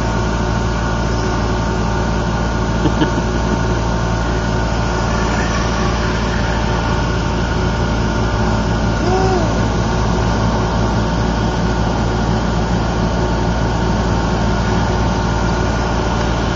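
A steady low engine-like hum over a constant rumble, unchanged throughout, with a faint short chirp about nine seconds in.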